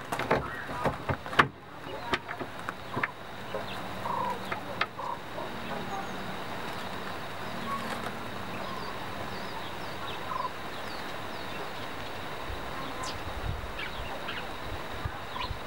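Quails in a shavings-and-newspaper box, with sharp taps and rustles as they peck and step on the paper in the first few seconds, the loudest about a second and a half in. Soft short chirps follow now and then over a steady background hum.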